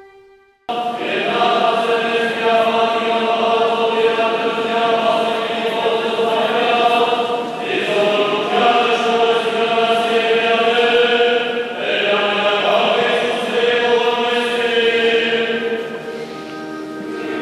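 Choir singing slow, sustained Armenian church chant, starting abruptly just under a second in.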